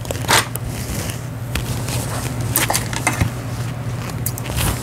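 Janome Memory Craft 5000 computerised sewing machine running, a steady hum with a few sharp clicks scattered through.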